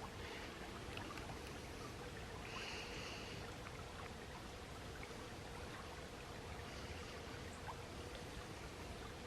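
Faint running water of a small woodland stream, an even rushing hiss, with a brief high buzzy sound about three seconds in and a fainter one near seven seconds.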